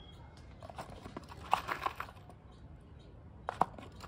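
Scattered light knocks and clicks of hands working on a seat frame while fitting foam and screws: a cluster about a second and a half in and a sharp double click near the end.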